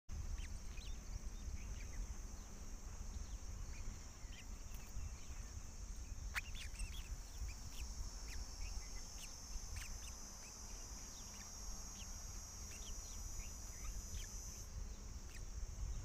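Steady high drone of insects with many short, high bird chirps scattered through it, over a low wind rumble on the microphone; part of the drone cuts off near the end, and there is one sharp click about six seconds in.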